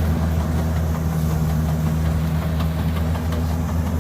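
Kubota DC60 combine harvester's diesel engine running at a steady drone while the machine cuts lodged, flattened rice close to the ground.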